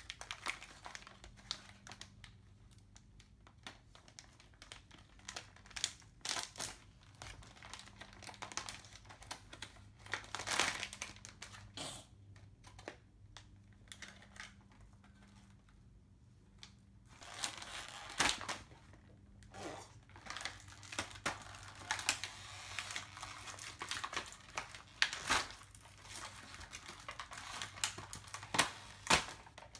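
Clear plastic blind-bag packets crinkling and rustling on and off as they are handled and opened by hand, with small sharp plastic clicks in among them.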